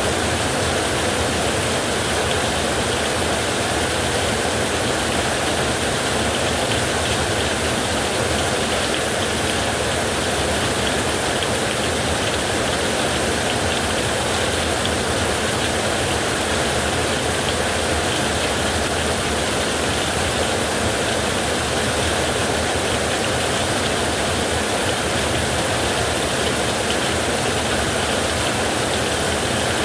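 Heavy rain with wind on a metal roof: a dense, steady hiss with no single drops or gusts standing out.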